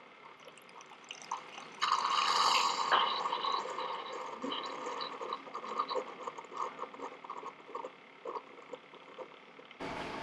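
Keurig K-Café brewing a hot shot of coffee onto ice in a glass: a loud sputtering burst about two seconds in, then scattered crackling and ticking as the hot coffee settles over the ice.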